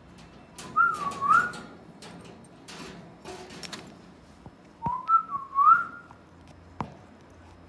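Alexandrine parakeet whistling a short phrase that dips and rises again, given twice about four seconds apart. Scattered clicks fall between the phrases, with one sharp click near the end.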